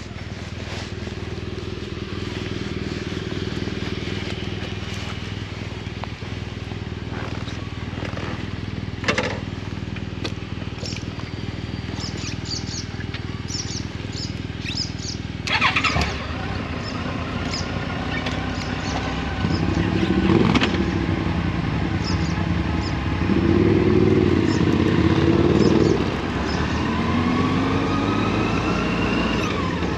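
Motorcycle engine running while riding, its pitch rising and falling with the throttle in the second half, with a couple of sharp knocks along the way.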